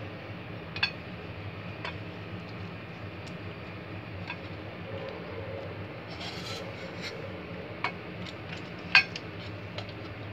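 Silicone pastry brush rubbing around the inside of a metal cookie press barrel, with a few sharp clicks of the brush against the metal, the loudest about nine seconds in, over a steady low hum.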